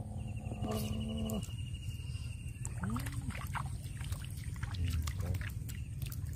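A hooked fish being played on a bottom-fishing rod: a reel whirs steadily for about two seconds, then comes a run of sharp clicks and splashes as the fish thrashes at the surface. A steady low rumble runs underneath.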